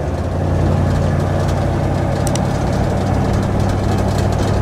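MAN KAT1 truck's diesel engine running steadily while driving on a gravel track: a low, even drone with road noise. A few sharp clicks break in, one about halfway and several more near the end.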